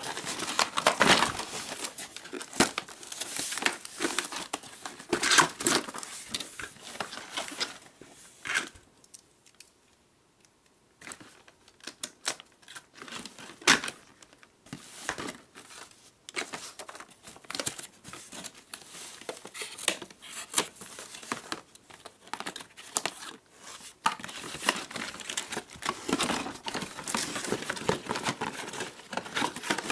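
Cardboard packaging being handled and pulled apart: irregular rustling, scraping and tearing of cardboard, with sharp clicks of hard plastic toy parts knocking as they are lifted out. There is a short quiet pause about ten seconds in.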